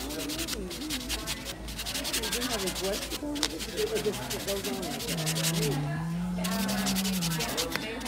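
Nail sanding block rubbed rapidly back and forth over a long acrylic nail, a fast scratchy rasp of many strokes a second. It pauses briefly twice, then stops for over a second about five seconds in before starting again.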